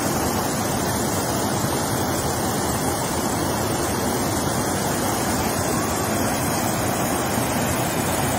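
Water from an overflowing reservoir rushing steadily over its spillway, a constant even roar of falling water.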